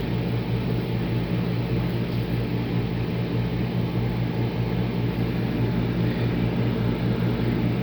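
Steady machine hum of running cooling fans: a low, even drone with several overtones that holds unchanged throughout.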